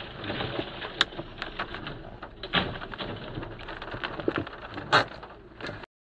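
A box van crashing onto its side on the road ahead, heard from inside a following car: steady noise with scattered knocks and clatter and two louder bangs, about two and a half and five seconds in. The sound cuts off abruptly near the end.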